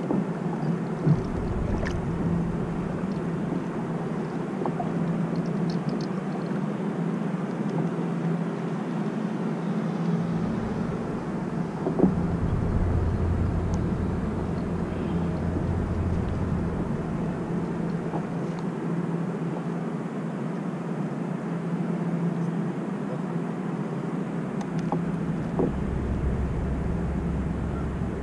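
Steady hum of a boat engine running, with low rumbling gusts of wind on the microphone now and then and a sharp knock about twelve seconds in.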